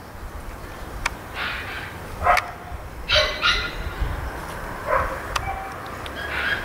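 A dog giving several short, high barks spaced about a second apart.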